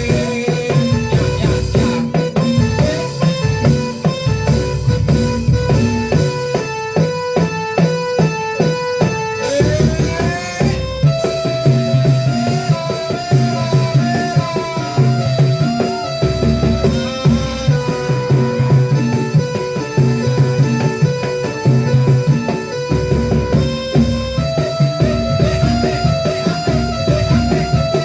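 Instrumental music: a melody of held notes over a steady drum beat, with a short rising slide about ten seconds in.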